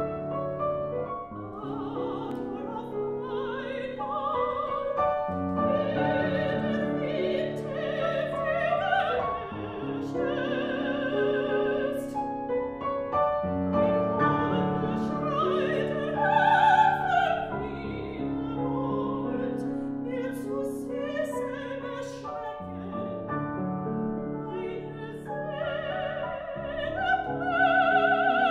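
A soprano singing a German art song with vibrato, accompanied by a grand piano. The piano plays alone for the first couple of seconds before the voice comes in.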